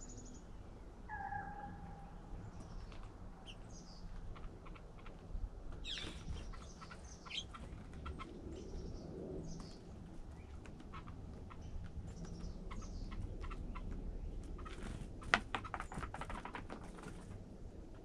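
Small songbirds chirping and calling around a seed feeder, short high chirps scattered throughout with a two-note call about a second in. Brief flurries of wing flutters and taps come about six seconds in and again near the end, the loudest of them a sharp tap a little before the end.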